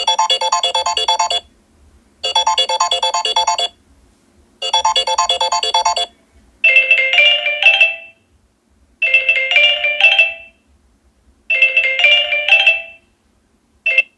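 Two Samsung Galaxy Note 8 stock ringtones played one after the other: first a quick pulsing electronic beep pattern, played three times with short pauses, then a short chiming motif, also played three times with pauses.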